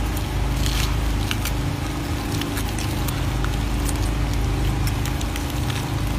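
Rhesus macaques handling and eating banana pieces: scattered small clicks and squishes over a steady low rumble with a faint hum.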